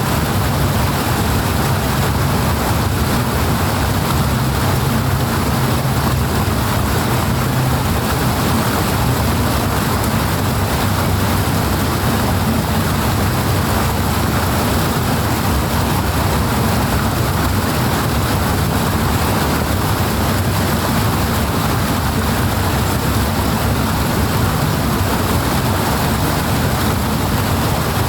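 Rushing water, steady and loud, with a low rumble underneath.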